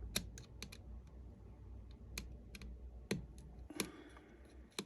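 Scattered light clicks and taps at an irregular pace from a small screwdriver and hands working on an opened MacBook Air.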